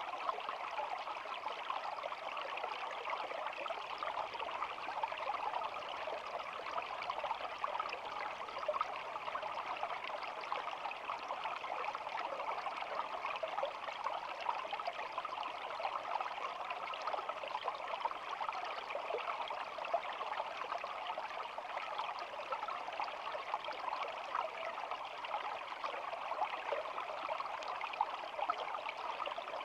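A small stream flowing and babbling steadily over stones, an even rush of water that does not change.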